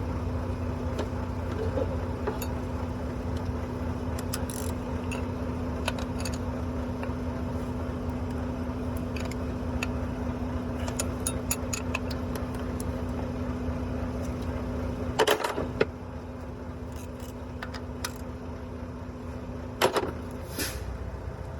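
Metal tools clinking and tapping on an engine's valve train during a valve-lash adjustment, with two louder knocks, one about two-thirds of the way in and one near the end. A steady low machine hum runs underneath and drops in level soon after the first knock.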